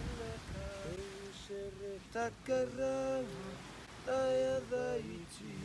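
A man singing a slow chant in long, held notes with short breaks between phrases.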